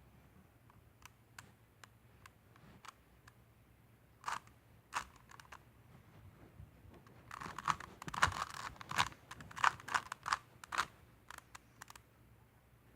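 Plastic Rubik's Cube layers being turned by hand: scattered light clicks, then a quick run of clacking turns from about seven to eleven seconds in.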